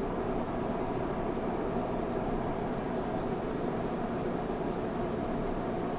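Beef stew simmering in the pan: a steady crackling hiss with faint scattered ticks.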